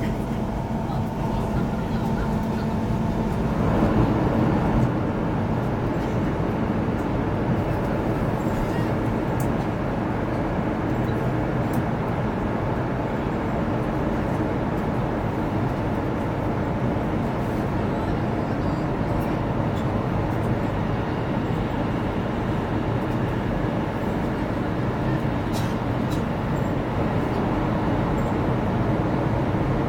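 Steady cabin noise of a CRH Harmony high-speed train running at speed: a constant rush of air and rolling rumble, swelling briefly a few seconds in.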